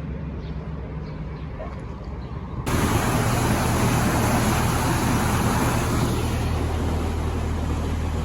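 A narrowboat's engine runs steadily with a low hum. About three seconds in, a loud steady hiss suddenly starts over it and continues.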